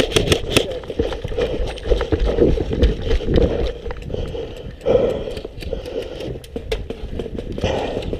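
A rapid burst of airsoft rifle fire that stops about half a second in, followed by irregular footsteps, gear knocking and scattered faint clicks as the player moves.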